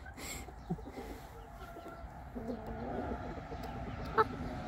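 Chickens clucking softly, with a single sharp click about four seconds in.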